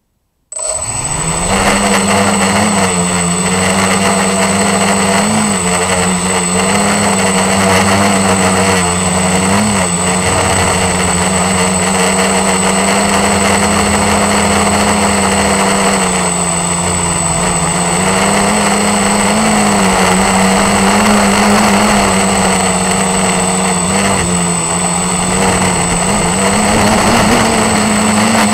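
Quadcopter's electric motors and propellers spinning up about half a second in, then running steadily as it lifts off and hovers, heard from a camera mounted on the craft. A steady hum wavers slightly in pitch as the throttle shifts, with a thin high whine above it.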